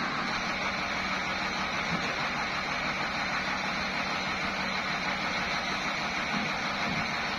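Sawmill machinery running steadily, an even mechanical noise that holds at one level throughout.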